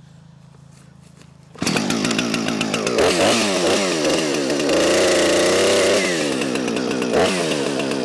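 Husqvarna 455 Rancher two-stroke chainsaw fires up suddenly about a second and a half in and is revved hard, its pitch climbing, holding high and wavering through the middle, then sinking back as the throttle eases, still running at the end.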